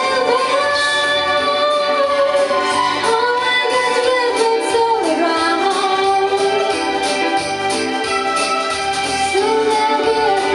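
A woman singing into a microphone over an amplified backing track with a steady beat.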